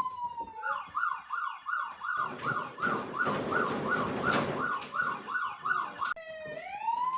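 Recorded emergency-vehicle siren played back. A wail falls away, then a fast yelp cycles about three times a second for around five seconds with a rush of noise under it midway, and a new wail rises near the end.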